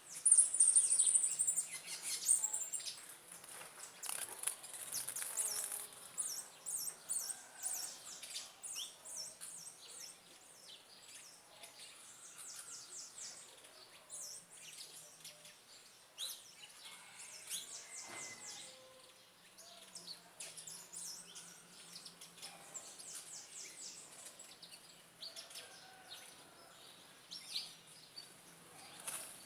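Small birds chirping, many short high chirps in quick runs, loudest and busiest in the first few seconds.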